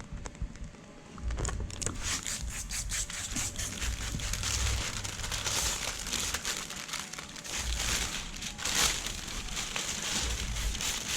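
Dense crinkling and rustling handling sounds with irregular crackles, and low rumbling bumps now and then.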